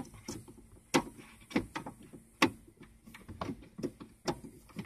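Irregular plastic clicks and knocks from handling a handheld diagnostic scan tool while tugging a stiff plug out of it, the two loudest knocks about a second and about two and a half seconds in.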